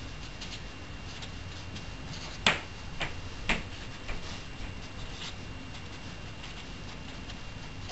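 Felt-tip marker writing numbers on paper: faint scratching and tapping strokes, with three sharper taps about half a second apart roughly a third of the way through.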